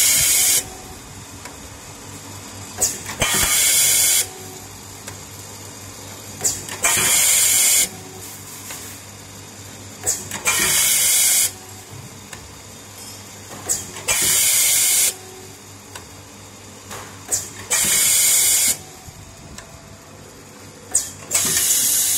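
Automatic servo-driven nut tapping machine cycling, with a low steady hum. About every three and a half seconds there are one or two sharp clicks, then a loud hiss of air lasting about a second, seven times in all.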